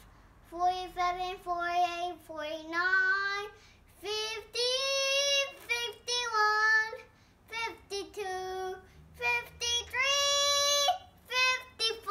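A young girl singing the numbers in a counting song, her high voice holding each note in a string of short phrases with brief pauses between them.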